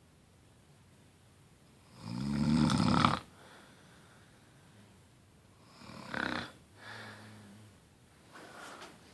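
A sleeping person snoring: one loud snore about two seconds in, lasting about a second, then fainter breathing sounds and a soft low snore later on.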